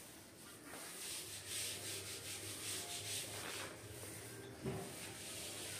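Paint roller on an extension pole rolling primer onto a plastered wall, giving repeated rasping swishes with each stroke. There is a short dull knock a little after four and a half seconds in.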